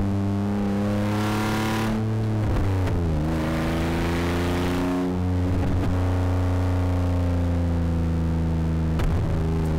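Rally car engine running hard at high revs, with brief breaks in the note about every three seconds; the pitch steps down about three seconds in.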